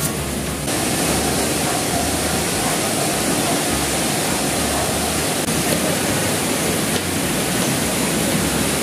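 A steady, loud rushing noise that fills out slightly about a second in and then cuts off suddenly.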